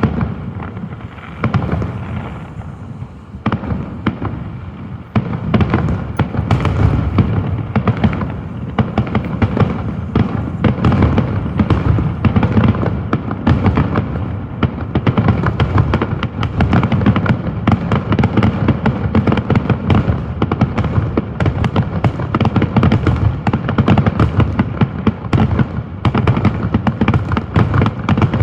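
Fireworks going off: a quick run of bangs and crackling pops over a low rumble, a few separate bangs at first, then dense and nearly continuous from about five seconds in.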